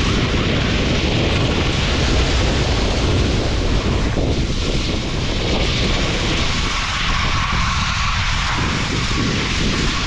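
Wind rushing and buffeting over the microphone during a fast ski descent: a loud, steady rush with a heavy low rumble that thins out somewhat about halfway through.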